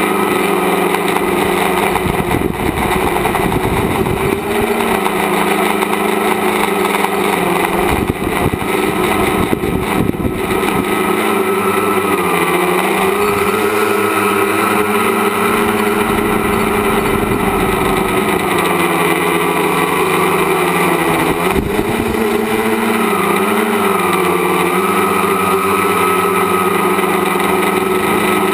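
Tricopter's brushless motors and propellers whining in flight, the pitch dipping and rising several times as the throttle changes, with wind buffeting the onboard microphone at times.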